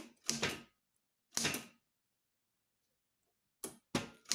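Manual typewriter keys struck one at a time, slowly, with irregular pauses: about five sharp clacks, three of them close together near the end, typing a capitals heading.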